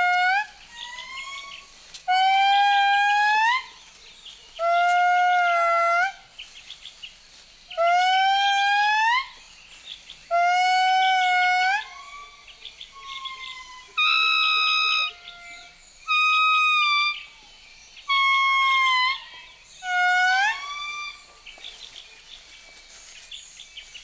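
Indri territorial song: a series of long, high-pitched, ghostly notes, each bending upward at its end, repeating about every two and a half seconds, with fainter notes in between. About fourteen seconds in, one note is held higher and steady; the next notes are shorter, and the song stops about twenty-one seconds in.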